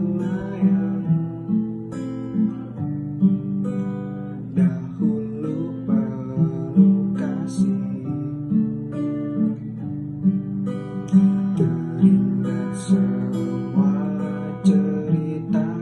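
Acoustic guitar playing, chords strummed with plucked notes in a steady rhythm.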